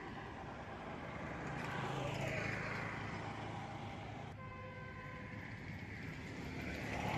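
Motor vehicle engines passing: a low running hum that swells and fades, rising about two seconds in and again near the end, with a steadier pitched tone in between.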